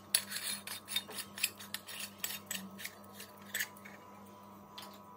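Aluminium murukku press being handled and its metal parts fitted together: a run of clicks and scraping rubs of metal on metal, dying down after about three and a half seconds.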